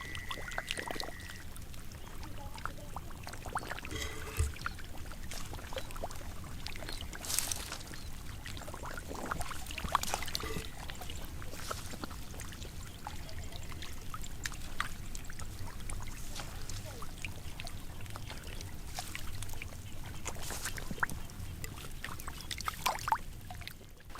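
Shallow water splashing and sloshing irregularly, with small clicks and drips, over a low steady rumble, as of someone wading and groping by hand in a flooded field.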